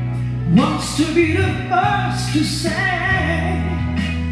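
Live electric keyboard accompaniment holding sustained chords, with a singer's voice sliding and holding notes over it between sung lines; the chord changes about three seconds in.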